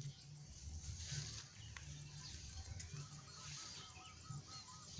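Faint outdoor bird calls: a run of about eight short, evenly spaced notes in the second half, with a few thin higher chirps, over a low uneven rumble.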